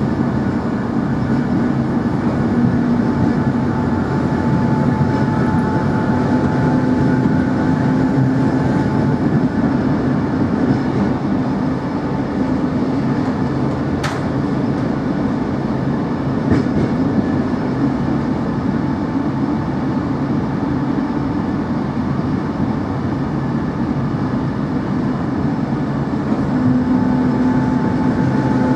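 Interior running noise of a ČD class 460 electric multiple unit under way: a steady rumble of the wheels on the rails with a constant hum underneath. About halfway through comes one sharp click, and a fainter one follows a couple of seconds later.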